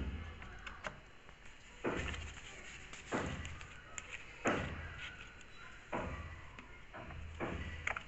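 Plastic detergent-dispenser drawer of a Samsung front-load washing machine being handled as its round liquid-detergent cap is opened and taken off: about five sharp plastic clicks and knocks, a second or so apart.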